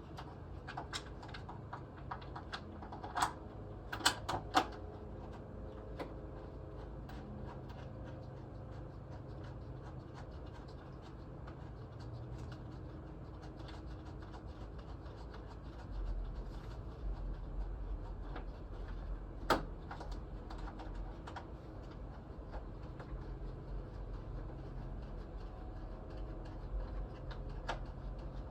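Scattered light clicks and taps of parts and hand tools being handled, with a few sharper knocks, over a steady low hum; a deeper rumble joins about halfway through.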